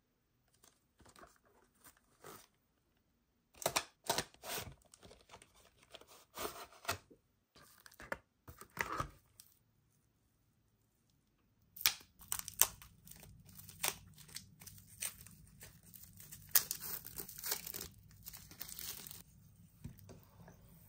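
Plastic wrapping on bath fizzers crinkling and tearing in bursts as they are unwrapped, with a cardboard box handled. There is a pause around ten seconds in, and then a dense run of crackling.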